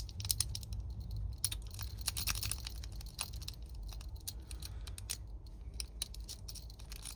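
Lock pick clicking and scraping against the pin tumblers of a Burg Wachter Splash laminated padlock, many small irregular clicks as pins are worked and set under tension, over a low steady hum.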